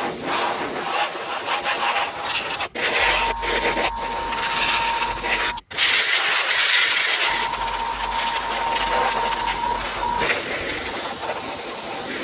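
Airbrush spraying orange paint onto a clear polycarbonate RC wing: a steady hiss of air and paint, cut off briefly two or three times as the trigger is let go.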